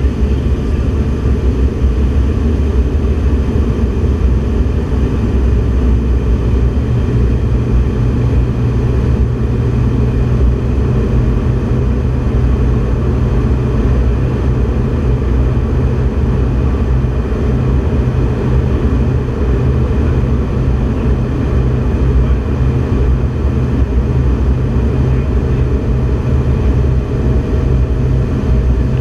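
Steady low rumble of a jet aircraft cabin in flight, with a low hum that grows stronger about six seconds in.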